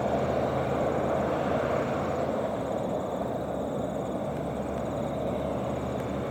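Loaded logging truck's diesel engine and tyre noise as it drives away, slowly fading as it recedes; its low engine note drops away about two and a half seconds in.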